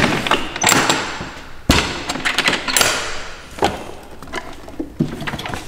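The latches of a car's rear-mounted luggage trunk being unfastened and the lid lifted open: a series of clicks and knocks, the loudest a sharp thud about a second and a half in.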